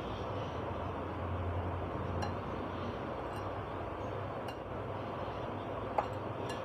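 A steel spoon stirring dry flour in a glass bowl, with light clinks of spoon on glass and one sharper clink about six seconds in, over a steady low hum.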